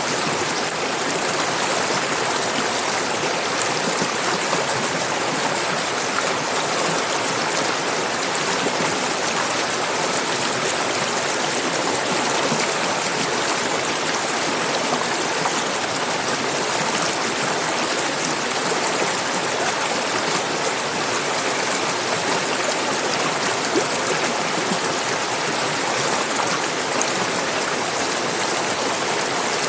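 Clear mountain river flowing: a steady, even rush of running water.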